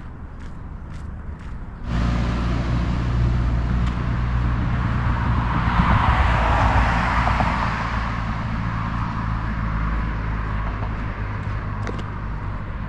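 A motor vehicle's engine and road noise start suddenly about two seconds in, swell to a peak around six to seven seconds, then slowly fade.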